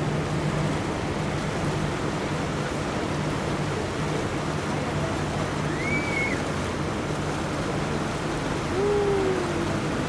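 River tour boat's engine running with a steady low hum under a constant rush of water and wind. A short high whistle-like call comes about six seconds in, and a brief falling call near nine seconds.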